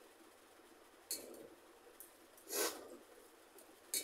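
Quiet eating sounds from eating by hand off a steel plate: a few short clicks and scrapes as fingers mix rice against the plate, with one louder, longer rustling noise about two and a half seconds in.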